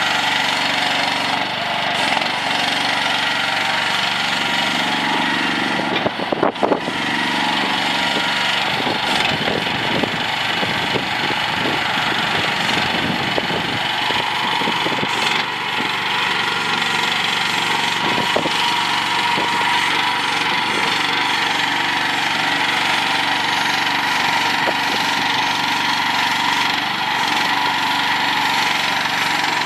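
Small engine of a CFG QK18R mini excavator running steadily, with a short cluster of sharp clanks about six seconds in and lighter clatter for some seconds after.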